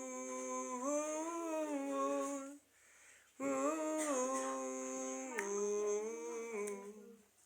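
A voice singing a hymn tune in long held notes that step up and down in pitch, with a break of about a second a little before the middle.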